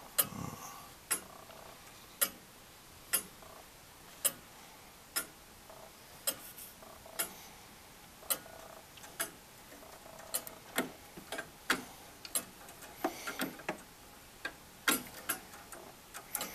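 The anchor escapement of a 1690 William Clement 30-hour longcase clock ticking steadily, about one tick a second, heard from inside the case. A low thump comes just after the start, and lighter irregular clicks come between the ticks in the second half.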